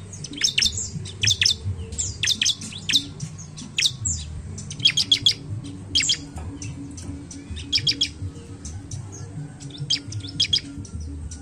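Bar-winged prinia (ciblek) singing: short bursts of sharp, high chirps repeated every second or two.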